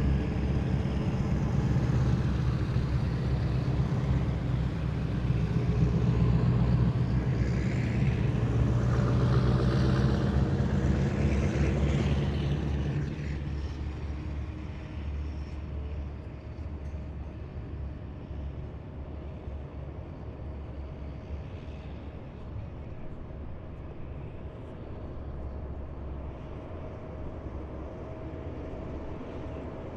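Heavy military vehicles driving past in a column, their engines giving a loud, steady low hum. The nearest vehicle goes by and the sound drops off about halfway through, leaving a quieter drone of vehicles further away.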